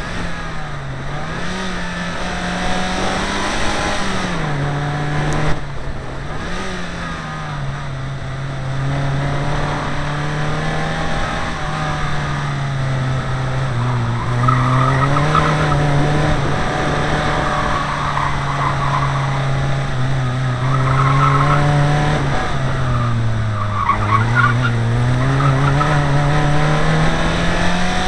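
Rally car engine heard from inside the cabin, revving up and dropping back again and again through gear changes and corners. Several short bursts of tyre squeal come in the second half as the car slides through bends, and there is a single knock about five seconds in.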